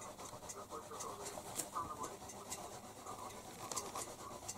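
Faint rustling and scratching of paper as a cat shifts about on loose sheets, with scattered light clicks.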